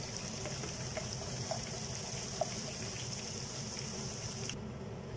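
Ginger-garlic paste and whole cumin seeds frying in hot oil in a non-stick pan, a steady sizzling hiss with a few light taps of a spatula. The sizzle cuts off abruptly near the end.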